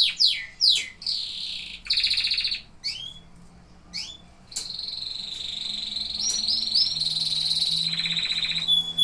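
Domestic canary singing: a run of quickly repeated falling notes, then buzzy trilled phrases and a few short chirps, and from about halfway a long rolling trill held near one pitch for about four seconds.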